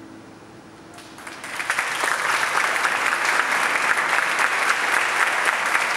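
A last held note dies away, then applause begins about a second in and quickly swells into steady, dense clapping.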